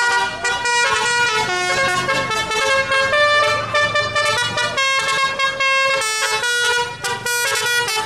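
Tour-bus 'telolet' musical horn, a set of roof-mounted trumpet horns, playing a melody in quick stepped notes, several notes to the second.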